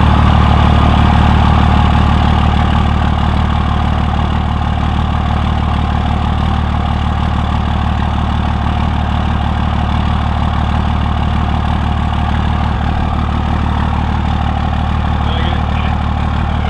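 5.9-litre Cummins inline-six turbo diesel idling steadily through a new 5-inch exhaust with no tip, just after starting; its level eases down a little over the first few seconds.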